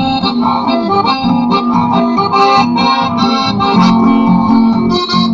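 Chamamé played live on accordion, with guitar accompaniment. The accordion carries a steady run of changing chords and melody over a regular strummed rhythm.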